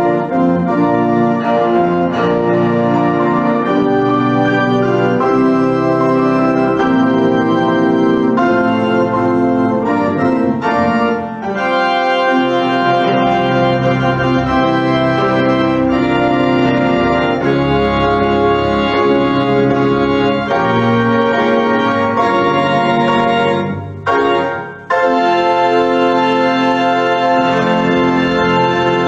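Organ music playing slow held chords, with a break of about a second near the end.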